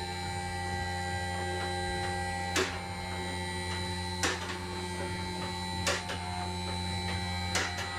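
Two-post car lift's electric-hydraulic power unit running with a steady hum while raising the car, the carriage safety locks clicking four times, about every second and a half.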